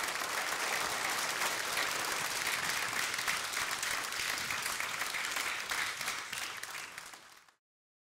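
Audience applauding, a dense patter of many hands clapping, which cuts off suddenly near the end.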